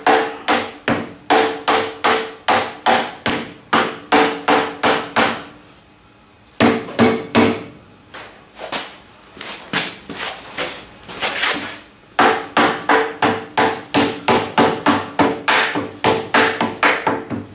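Copper-headed mallet rapping the cast-iron tool head of a Douglas metal shaper: a steady run of sharp blows, about three a second, each leaving a short metallic ring. There is a brief pause about six seconds in, and a looser, uneven spell of blows before the fast rhythm resumes.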